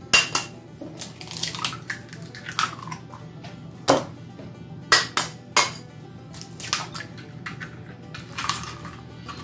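Eggs cracked against a small ceramic bowl, a series of irregular sharp taps and clinks of shell and fingers on the bowl, over soft background music.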